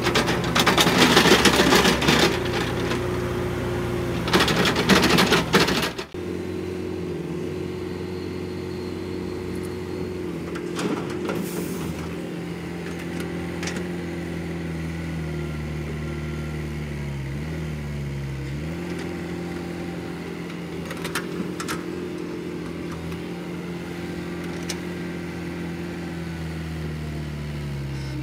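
Diesel engine of a Caterpillar hydraulic excavator loading a dump truck, running steadily with its pitch dipping briefly a few times as it works. In the first few seconds, two loud rushes of soil spilling from the bucket into the truck bed.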